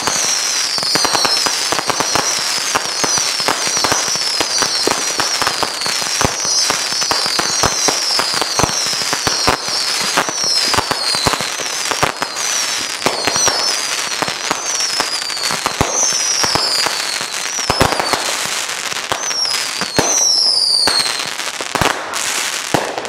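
Consumer aerial fireworks going off in a continuous volley: dense crackling and popping, with a run of high whistles that each fall in pitch, about one a second, and a few louder bangs in the second half.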